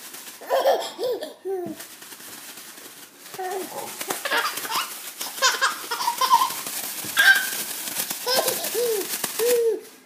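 A six-month-old baby laughing in repeated giggles and belly laughs, over the crinkling rustle of a plastic shopping bag.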